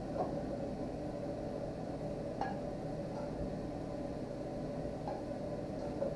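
A serving utensil clinks and scrapes a few times against a frying pan as rice is scooped out, over a steady low hum.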